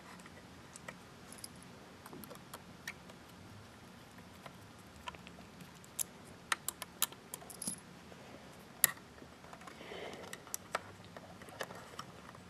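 Small screws and a screwdriver clicking against the steel drive bracket of a Synology DS215j NAS while a 3.5-inch hard drive is screwed in. The clicks are sharp and scattered, bunched about six to eight seconds in, with the loudest one about nine seconds in.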